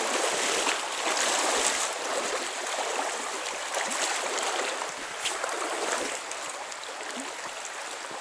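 River water rushing steadily, the river running high with snowmelt.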